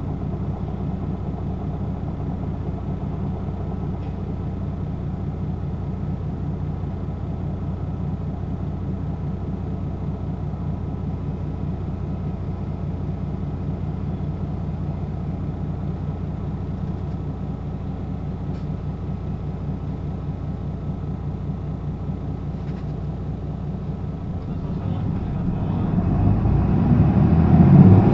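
Hino LKG-KV234N3 city bus's diesel engine idling steadily; about 25 seconds in, the engine revs up and grows louder as the bus moves off.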